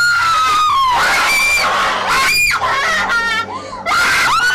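People screaming in fright: a string of long, high-pitched screams one after another, with a fresh scream starting near the end.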